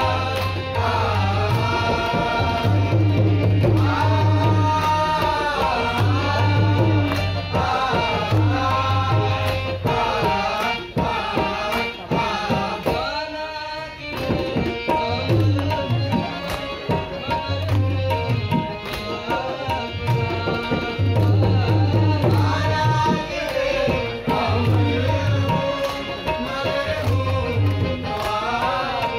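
Live qawwali: a group of voices singing together, accompanied by harmonium and a steadily played tabla. The singing thins out briefly about thirteen seconds in, then resumes.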